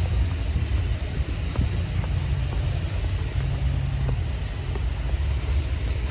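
Wind buffeting the phone's microphone, a low, uneven rumble that rises and falls.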